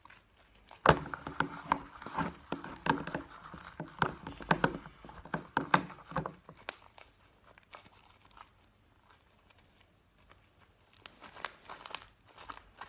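Fluffy slime made from peel-off mask and shaving foam being squished and kneaded by hand, giving a run of sticky clicking and popping from about a second in until about six seconds, then again near the end.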